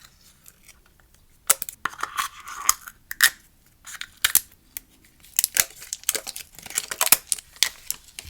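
Crinkly packaging around a roll of washi tape tearing and rustling as it is unwrapped by hand, in irregular clusters of sharp crackles with short pauses between.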